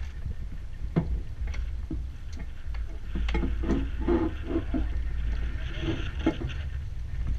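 Low rumble of wind buffeting the microphone aboard an open boat, with a few sharp knocks in the first few seconds and short bursts of muffled voices around the middle.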